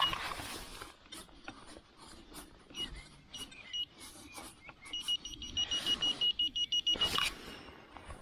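Metal detector beeping on a target with one steady high tone: a few single beeps, then a quick, even run of beeps lasting about two seconds. Scattered knocks and scrapes sound underneath.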